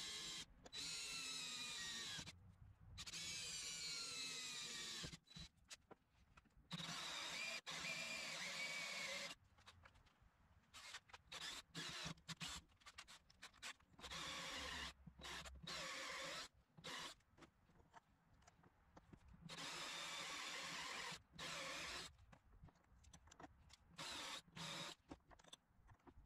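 Cordless drill boring into a metal angle bracket clamped in a bench vise, run in repeated bursts of a few seconds. The motor whine drops in pitch as the bit bites into the metal. Shorter, stop-start bursts follow later, with a step drill bit widening the hole.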